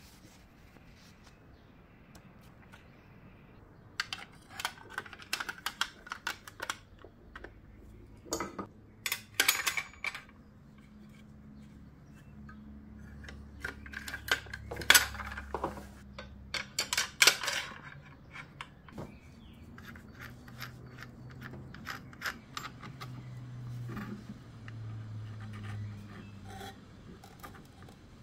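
Intermittent clicks, taps and light clatter of metal rods and plastic parts being handled and fitted to a plunge router's base. The clatter comes in short clusters, the loudest about halfway through.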